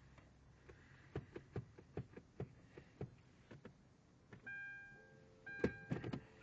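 Sharp clicks from a Hyundai Genesis Coupe's electrics, about two or three a second, during a failed start, followed near the end by short electronic chime tones from the car.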